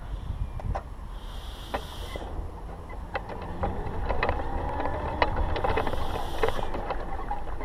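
Wind buffeting the microphone with a steady low rumble. Scattered light clicks and two short hissing bursts, about a second in and near six seconds, sound over it.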